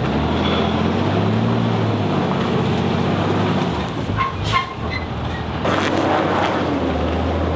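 Flatbed tow truck's engine running under load as it works along a muddy, rutted track; its note rises and falls, eases off briefly, then picks up again near the end. Two short, high beeps sound about halfway through.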